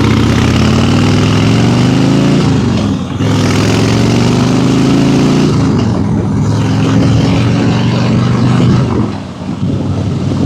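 Harley-Davidson Fat Boy's V-twin engine under way, pulling up through the gears: the pitch rises, drops at a gear change about three seconds in, rises again, then settles into steadier running after another shift near the middle.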